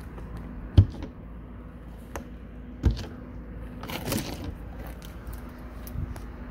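Two sharp knocks with a smaller click between them, then a rustling scrape about four seconds in, as a metal RV storage compartment door is unlatched and swung open.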